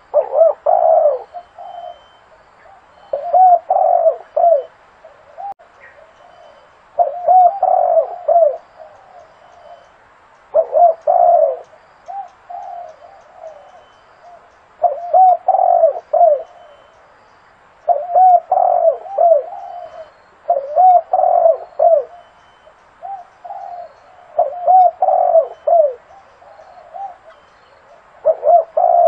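Zebra dove calling with its staccato, rolling coo: phrases of several quick rising-and-falling notes, repeated about every three to four seconds with short pauses between.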